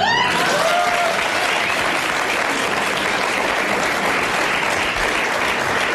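Studio audience applauding, starting abruptly and keeping up at a steady level.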